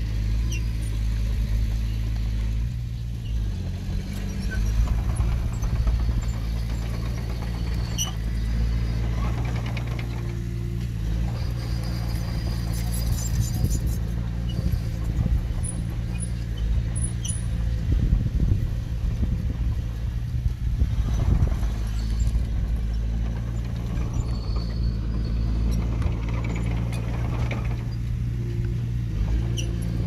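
Small crawler bulldozer's diesel engine running at a steady speed, with a few short high-pitched squeals around the middle.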